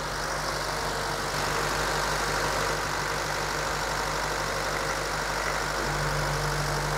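Car engine idling steadily while running with no oil in it, some 35 minutes into oil starvation. About six seconds in, a low hum in the idle grows louder.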